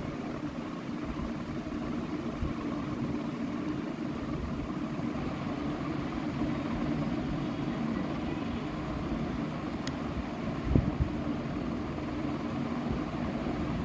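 Steady low mechanical drone, like a motor or engine running, with a short thump about eleven seconds in.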